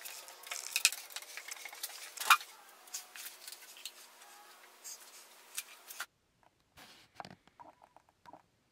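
Plastic spreader scraping and pressing thick epoxy fairing compound onto a fiberglassed plywood shell: a string of short, irregular scrapes and taps, with one sharp knock a little after two seconds. About six seconds in it drops to a few faint clicks.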